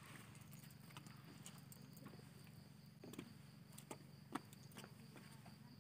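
Faint outdoor ambience: a steady high insect drone, with scattered light taps of footsteps.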